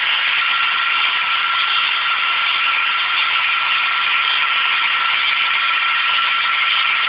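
CNC-converted Emco Unimat SL mini lathe running and turning a workpiece with the tool bit cutting: a steady machine noise with a thin, steady whine.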